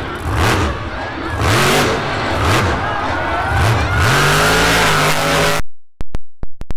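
Monster truck's supercharged V8 revving hard in repeated surges, its pitch rising and falling about once a second, then held high as the truck wheelies and launches off a ramp. The audio cuts out abruptly about five and a half seconds in, leaving only a few clicks.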